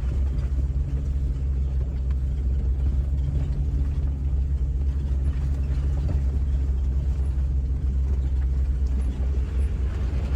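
Jeep WJ driving on a backroad: a steady low rumble of engine and road noise, with a constant low drone.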